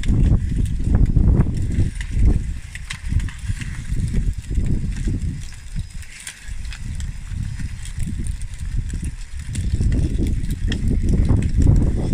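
Wind buffeting the microphone in uneven gusts, easing off in the middle and picking up again, over a light patter of small clicks from a radio-controlled model bulldozer's 3D-printed plastic track chain crawling over gravel.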